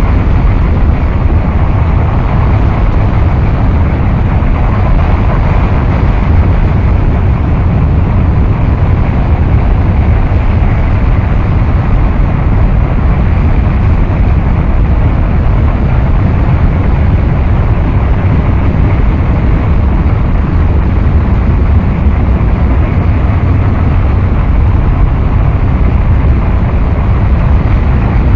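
Harsh noise wall: a loud, dense, unchanging mass of noise, heaviest in the bass, with no rhythm, melody or breaks.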